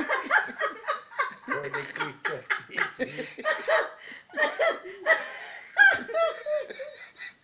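Hearty laughter in short, quickly repeated bursts, with a louder, high-pitched laugh about six seconds in.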